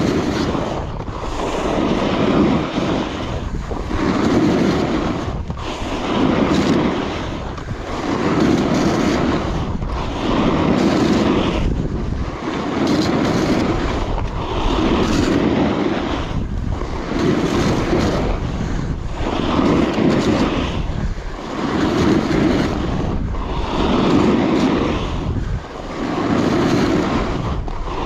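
Alpine snowboard carving linked turns on groomed snow: the edge rasps through each turn and eases off briefly between turns, about once every two seconds. Wind noise on the microphone underneath.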